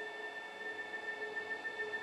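Sustained electronic tones from an electroacoustic piece: a bright high tone held steady over a dense cluster of fainter steady pitches, with a lower tone pulsing about twice a second.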